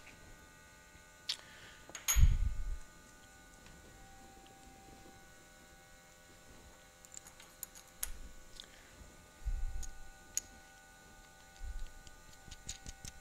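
Small metal brackets being handled and bolted together with a nut and bolt: scattered light clicks and ticks, with a dull knock about two seconds in and a few softer knocks later. A faint steady hum lies underneath.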